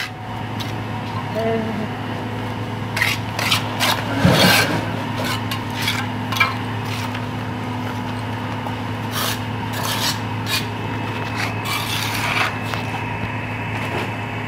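A hand tool scraping wet cement from the rim of a 4-inch pipe opening, in short irregular strokes, over a steady low hum.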